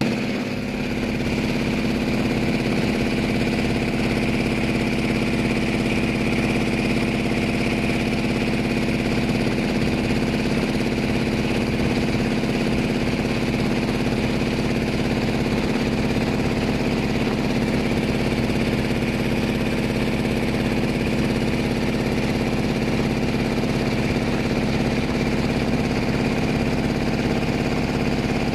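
Boat engine running steadily at a constant pitch, with an even hum throughout.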